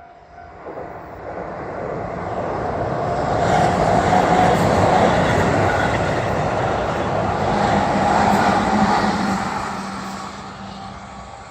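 A Keihan Main Line electric train passing by. The noise swells over the first few seconds, stays loud through the middle and fades away near the end.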